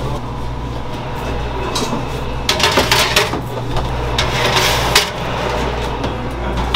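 Kitchen clatter of bakeware and utensils: a run of knocks and scrapes about two and a half seconds in and another around four and a half seconds in, over a steady low hum.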